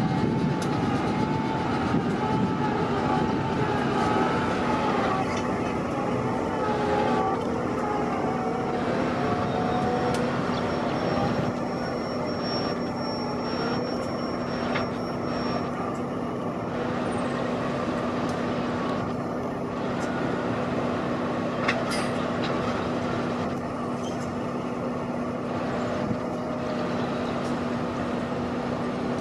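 Pacific National NR-class diesel-electric locomotives, GE 16-cylinder engines, running slowly past as a multi-locomotive consist: a steady engine hum with a constant low drone throughout, and some wavering higher tones over the first ten seconds or so.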